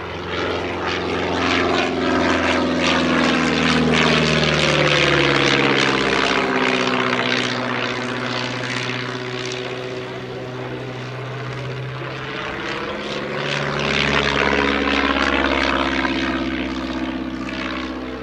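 Stampe SV4C biplane's piston engine and propeller running through an aerobatic display. It is loudest about five seconds in and again about fifteen seconds in, and its pitch sinks as it passes and rises again between.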